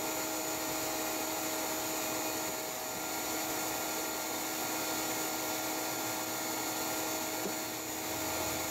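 Bee vacuum (a shop-vac-driven Everything Bee Vac) running steadily, an even motor hum.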